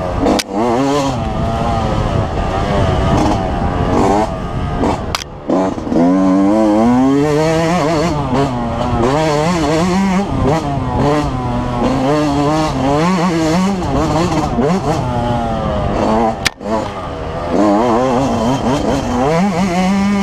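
2005 Yamaha YZ125's two-stroke single-cylinder engine revving up and down continuously as the rider works the throttle through the woods course, with sharp brief breaks in the sound about five seconds in and about sixteen seconds in.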